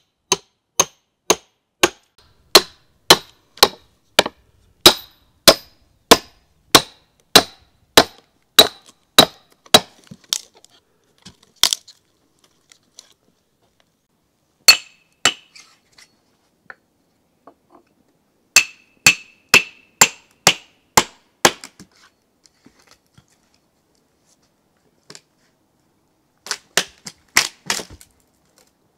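Steel splitting wedges being hammered into a cedar log to split it lengthwise: sharp ringing hammer blows, about two a second for the first ten seconds, then a single loud crack. Two more short runs of blows follow, and near the end a quick cluster of cracks as the split halves are torn apart.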